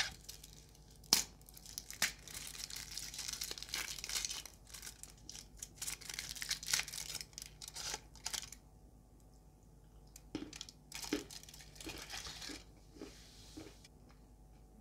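Paper and plastic packaging of a chocolate bar being torn open and crinkled, a dense crackling for most of the first eight seconds. After that come a few scattered sharp clicks and snaps.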